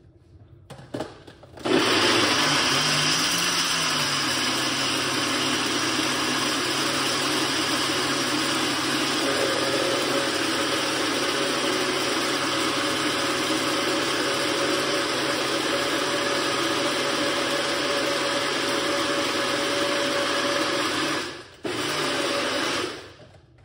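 Personal bullet-style blender running, blending pomegranate seeds with water: it starts about two seconds in and runs steadily for some twenty seconds, a steady whine joining about halfway. It stops briefly near the end, gives one short second pulse, then cuts off.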